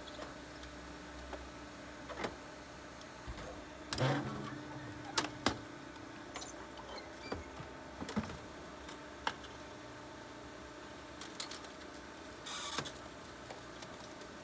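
Twin-ram hydraulic metal baler running: a steady hum with scattered metal clanks and knocks, the loudest about four seconds in, and a brief rushing noise near the end.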